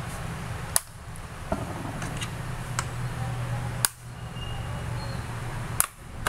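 Sharp plastic clicks as a plastic opening pick is worked along the seam of a tablet's case and the cover's clips snap loose, with three louder snaps about one, four and six seconds in, over a steady low hum.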